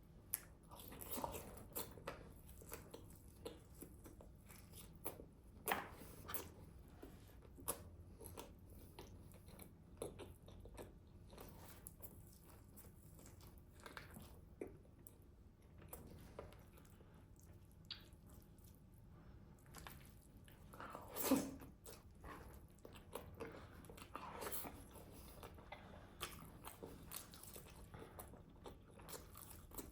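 Close-miked eating sounds of grilled chicken: bites and chewing with small crunches and wet clicks. The loudest is a longer bite about 21 seconds in.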